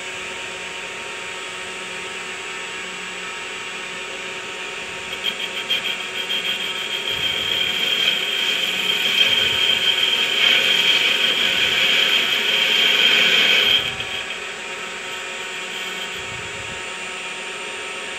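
WM210V benchtop metal lathe running with its chuck spinning an aluminium-alloy sewing-machine pulley. About five seconds in, the turning tool starts cutting inside the pulley and a louder, high-pitched wavering cutting sound rises over the steady motor hum. It stops near fourteen seconds, leaving the lathe running alone.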